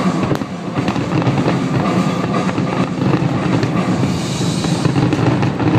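Fireworks finale: a dense, unbroken barrage of aerial shell bursts and crackle, many shells going off at once.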